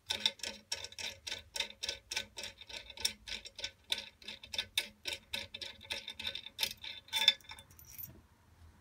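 Ratcheting spanner clicking in a steady fast rhythm, about five clicks a second, as the bolt of an M8 rivnut insertion tool is backed off after setting the rivnut. The clicking stops about seven seconds in.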